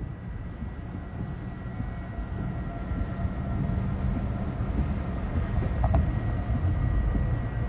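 Low, steady rumble of strong wind that slowly grows louder, with a faint steady high-pitched tone running through it.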